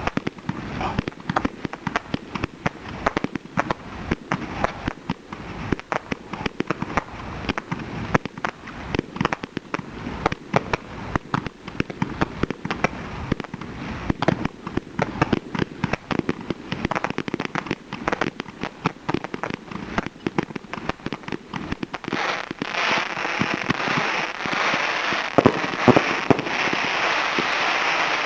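Fireworks display: a rapid, unbroken string of bangs from launches and bursting shells. About three-quarters of the way through it turns into a dense, steady crackling hiss.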